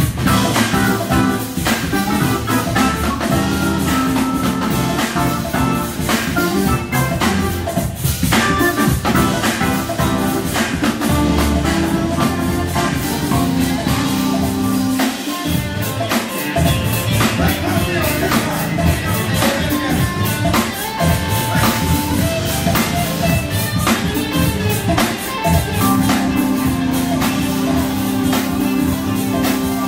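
Live jazz band playing: drum kit, electric guitar and keyboards. The bass end drops out briefly about halfway through, then comes back in.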